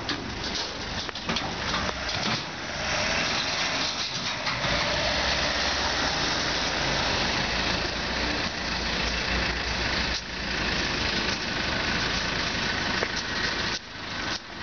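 Backhoe loader's diesel engine running steadily, louder from a few seconds in as it works, lifting and carrying a dismantled market stall.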